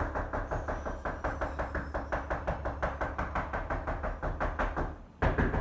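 A rapid, steady series of knocks, about six a second, stopping abruptly near the end.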